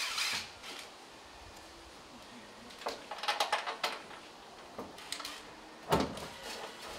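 Steel car door being held up and fitted to a Mercedes E-class body shell, with metal clicks and rattles and one loud knock near the end.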